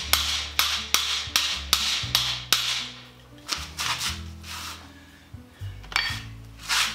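Hand hammer striking a steel bearing housing in steady blows, about two and a half a second, to dimple it; the blows stop a little under three seconds in. A few lighter metal knocks follow, with a sharper clank near the end.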